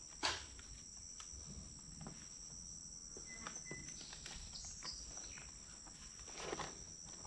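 Steady high-pitched drone of insects in summer, with a sharp click about a quarter second in and scattered faint clicks and rustles of handling.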